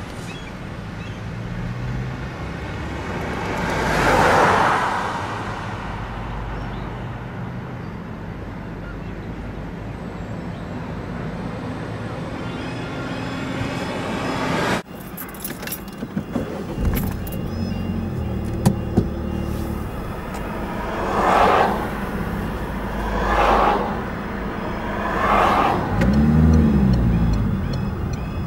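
Road traffic: a vehicle passes about four seconds in. After an abrupt cut about halfway through, a car drives along a road and three oncoming vehicles pass one after another near the end.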